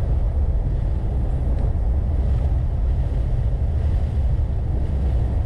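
Steady low rumble of a vehicle driving on a paved road, heard from inside the cab: engine and tyre noise, even throughout.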